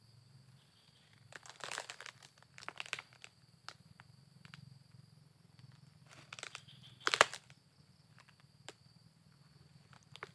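Footsteps crunching and crackling on dry, dead oil palm fronds and leaf litter, in a few irregular bursts, the loudest about seven seconds in.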